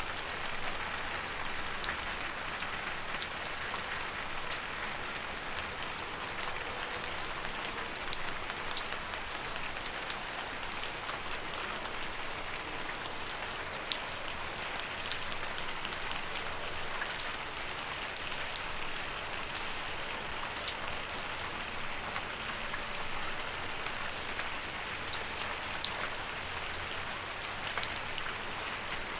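Steady rain falling, an even hiss with many sharp individual drop ticks.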